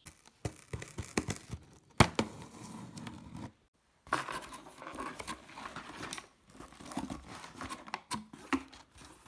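A parcel being unpacked by hand: packaging tearing and crinkling, with scattered knocks and a sharp knock about two seconds in.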